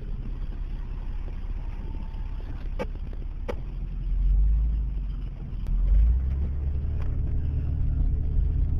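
Car driving, heard from inside the cabin: a steady low engine and road rumble that swells twice near the middle, with a few faint clicks.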